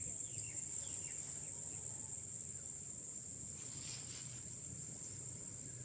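Steady, high-pitched drone of insects calling, with a faint low rumble underneath.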